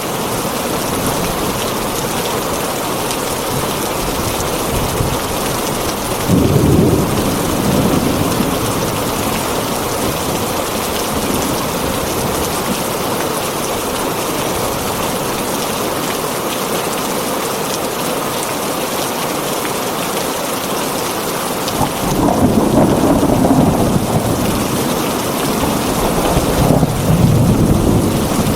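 Heavy rain drumming steadily on a tin roof, with rolls of thunder rumbling about six seconds in and again through the last several seconds.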